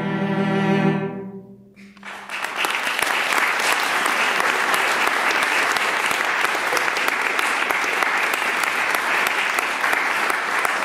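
Four cellos hold a final chord that dies away about a second and a half in. Then an audience breaks into steady applause.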